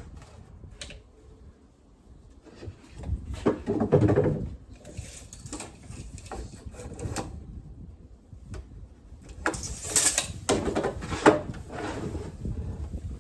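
Irregular knocks, bumps and scrapes of wooden shelving pieces being handled and fitted into place, louder about four seconds in and again around ten to eleven seconds in.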